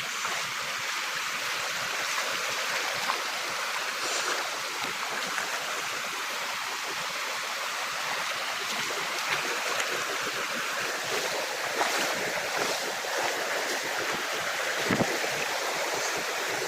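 Waterfall water rushing: a steady, even rush with a few small knocks and a short low thump about fifteen seconds in.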